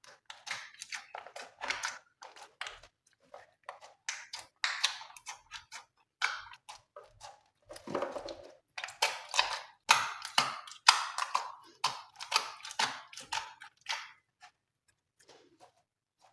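Glossy slime being worked by hand, making quick, irregular sticky clicks and crackles that come thickest in the second half.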